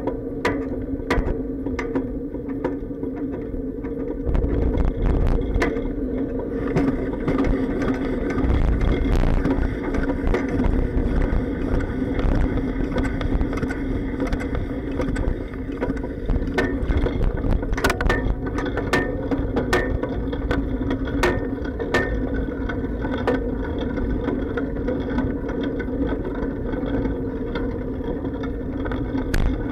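A bicycle in motion, heard through a camera sealed in a waterproof case on the bike: a steady hum with frequent sharp clacks and bumps from the frame. There are stronger low rumbles twice, about four and eight seconds in.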